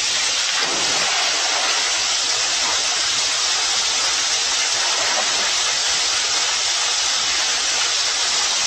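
A steady, even rushing hiss that holds at one level throughout, like spraying or falling water.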